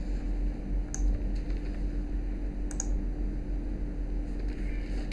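A few separate sharp computer mouse and keyboard clicks, with a close pair near the middle, over a steady low electrical hum.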